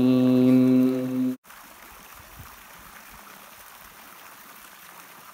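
A reciter's voice holding the last syllable of a Quran verse as one long steady note, cut off abruptly about a second and a half in. After it comes a faint, steady rush of flowing stream water.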